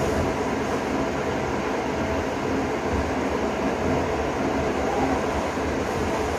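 Steady whooshing hum of an electric pedestal fan running, with no breaks or changes.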